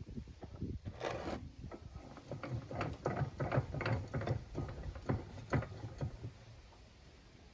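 Lathe spindle and bearing parts being handled during disassembly: a run of small, irregular metal clicks, knocks and rattles, with a brief scraping noise about a second in, tailing off near the end.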